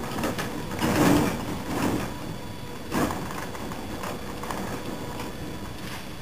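Radio-controlled 1/6-scale Marder III tank running its electric drive motors and working its tracks over wooden decking as it turns on the spot, a steady mechanical whir with louder scraping surges about one, two and three seconds in.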